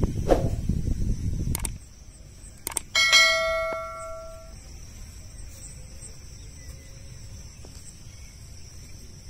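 Subscribe-button animation sound effect: a couple of sharp clicks, then a bell dinging once about three seconds in and ringing out over about a second and a half.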